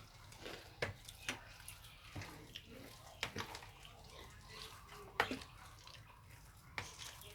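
Scattered light clicks and wet taps, about a dozen spread irregularly over several seconds, over faint background noise.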